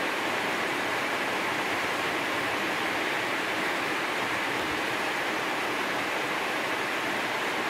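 Heavy rain falling on a spandek metal roof lined with a foil sound-damping layer, heard from beneath: a dense, steady hiss.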